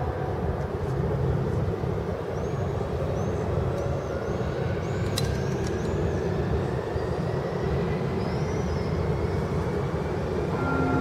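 Passenger train pulling away over station points: a steady rumble of wheels on rails, with a faint whine slowly rising in pitch and a few short high squeaks in the middle.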